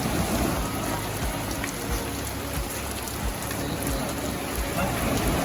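Heavy rain falling steadily, with a few short low thuds.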